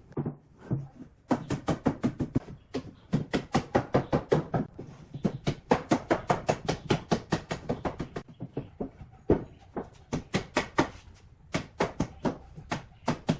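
Rapid, even knocks of a tool striking wood, about six a second, in several runs broken by short pauses.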